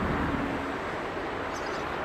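Steady outdoor traffic noise from passing road vehicles, with a short low hum about half a second long near the start.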